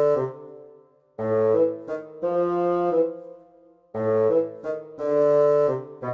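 Background music of held brass chords in short phrases, with brief pauses between them.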